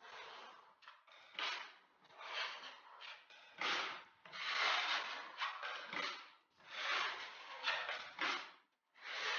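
A wide steel filling knife scraping across a plaster wall in repeated strokes, each about a second long or shorter, as filler is worked onto the wall.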